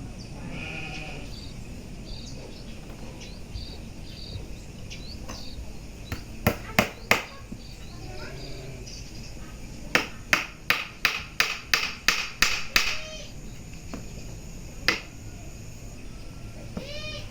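A series of sharp, ringing knocks: three close together, then a run of about eight at roughly three a second, then a single one.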